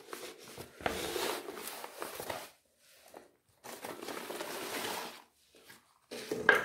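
Finely crumbled dry garden soil scooped with a cut plastic bottle and poured into a woven plastic sack, the sack crinkling as it is handled. There are two stretches of rustling and pouring, each about a second and a half long, with a pause between them and a shorter one near the end.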